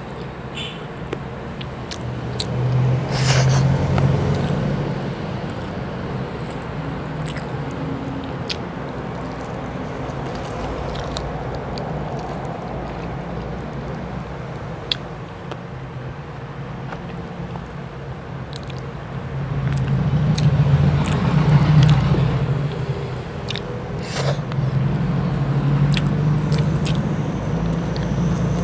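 Close-up eating sounds: biting meat off a piece of chicken adobo and chewing it with rice, with many small wet mouth clicks. Underneath runs a steady low rumble that swells twice, about three seconds in and again past the middle.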